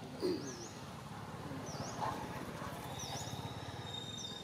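Outdoor ambience: a short, high chirp that dips and rises, repeated about once a second. A steady high whine joins about three seconds in, and a brief louder sound comes just after the start.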